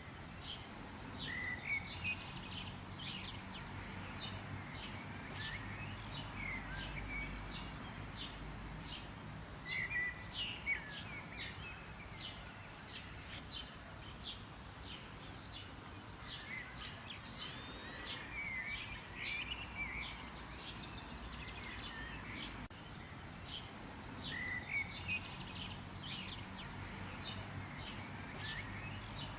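Birds chirping and calling in a steady chorus of short high chirps, with louder bursts of calls every several seconds over a low steady background noise.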